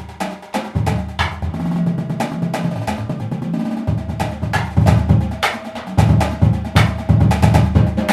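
Marching drumline battery playing a choppy warm-up etude: rapid snare strokes and rolls over pitched bass drums, in a meter that shifts between 12/8 and 10/8. About four seconds in, the low drums come in louder and more steadily.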